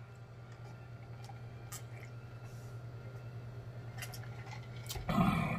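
A person drinking water from a large plastic jug: quiet sips and swallows with a few faint clicks, over a faint steady low hum. A brief louder sound comes near the end.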